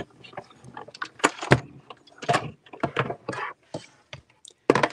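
Hand-cranked die-cutting machine being cranked, drawing a sandwich of plastic cutting plates with a thin die and cardstock through its rollers: a run of irregular clunks, clicks and plastic clatters, with a louder clatter near the end as the plates come out.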